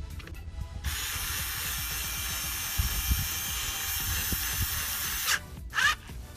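Power drill driving a Loctited bracket bolt home, running steadily for about four and a half seconds and then stopping, followed by a brief rising chirp.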